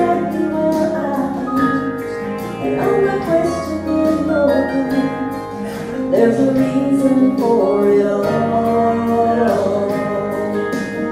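Two voices singing a slow gospel song into microphones, with guitar accompaniment and long held notes.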